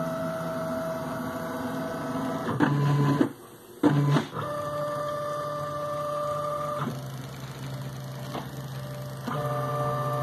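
Stepper motors of a homemade chain-driven CNC router whining as the machine moves its pen over a plot. The pitch jumps with each new move, and the motors stop briefly about three seconds in.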